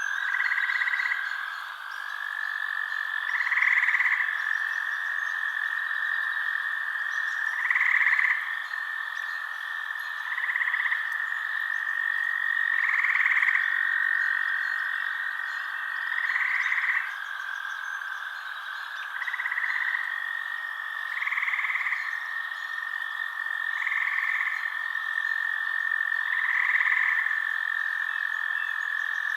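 Frogs calling in a chorus: a steady high trill runs underneath, and louder calls about a second long rise over it every two to three seconds.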